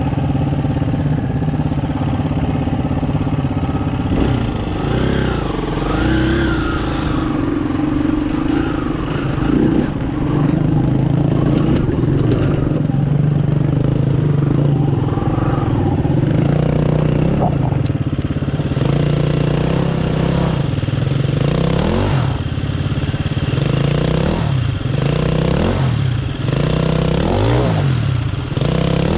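Dirt bike engine pulling at low revs up a steep, rocky trail, the revs rising and falling with the throttle. In the last several seconds come repeated quick blips, the revs rising sharply and dropping back.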